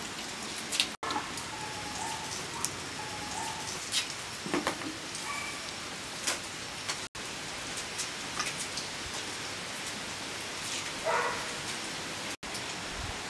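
Steady patter of rain on a surface, with scattered light ticks of drops. The sound cuts out for an instant three times.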